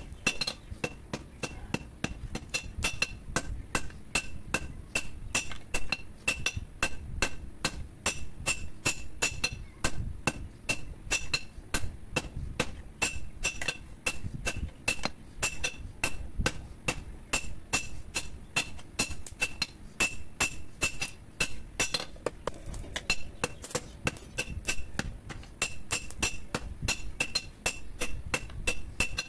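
Hammer blows on a red-hot steel blade lying on a steel anvil, quick and even at about three strikes a second, each with a bright metallic ring. The blade is being hand-forged into a curved chol dao billhook from an old power-tiller blade.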